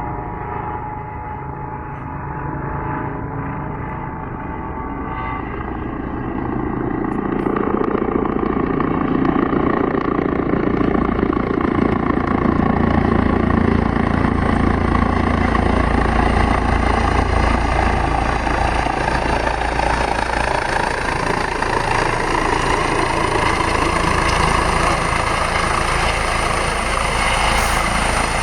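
Airbus H135 helicopter's turbines and rotor running, growing louder about six seconds in and then holding steady with a thin high turbine whine.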